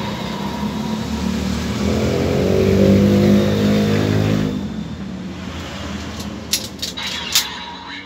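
Kamen Rider Geats DX toy transformation belt with the Water Raise Buckle playing an electronic, engine-like transformation sound effect. It swells to its loudest about three seconds in and cuts off about four and a half seconds in. Near the end come a few sharp plastic clicks as the buckle is handled and worked again.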